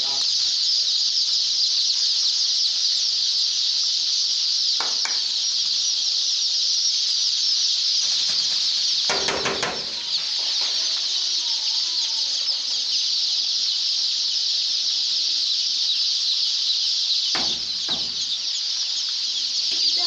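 Hundreds of young chicks in a brooder shed peeping all together in a dense, unbroken high chorus. Three short noises cut through it, about 5, 9 and 17 seconds in.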